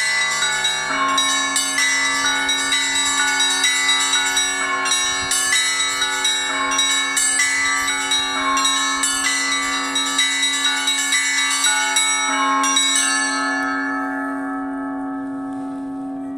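Russian Orthodox church bells rung in a fast, dense pattern of smaller bells struck over the steady hum of a lower bell. Near the end the striking stops and the bells ring on, slowly fading.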